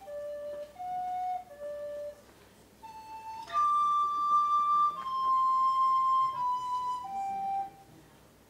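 A flute playing a slow, plain melody one note at a time, with no ornaments: the first phrase of a Baroque piece stripped of its embellishments. A few short notes and a brief pause lead to a long high held note about three and a half seconds in, which then steps down through lower notes.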